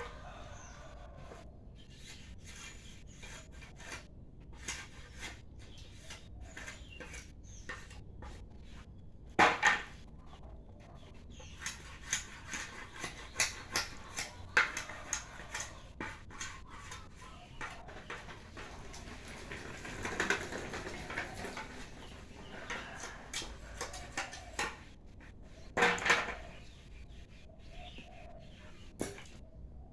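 Irregular knocks and clatter of wood being worked during goat-pen repair, with sharper strikes about nine and a half and twenty-six seconds in and a quicker run of knocks a few seconds after the first.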